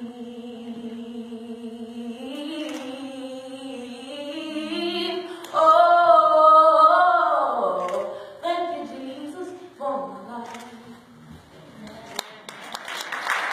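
A woman singing the long held, sliding closing notes of a gospel song, loudest about halfway through. Applause breaks out near the end.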